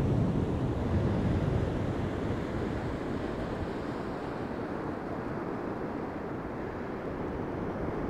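Surf breaking on a sandy beach, a steady rushing noise, with wind rumbling on the microphone.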